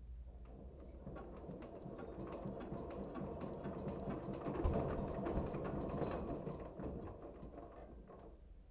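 Mechanical rattling and clicking that builds up over a few seconds, peaks, then dies away.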